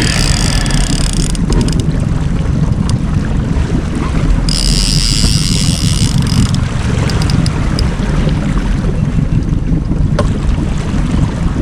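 Wind buffeting the microphone over the steady running of a fishing boat's motor while trolling, with a high hiss rising for about two seconds midway.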